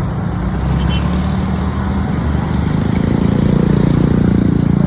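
A vehicle engine running close by over street traffic noise, growing louder about three seconds in.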